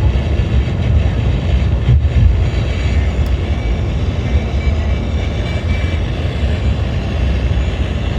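Steady low rumbling noise with a fainter hiss above it and no speech, holding at an even level throughout.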